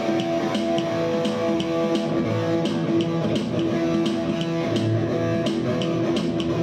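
Music: a guitar-led passage with held notes over a bass line and a regular light tick.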